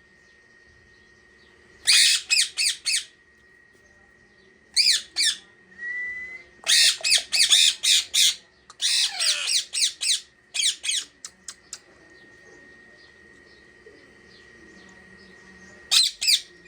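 Parrot squawking in several bursts of quick, harsh calls separated by short quiet gaps.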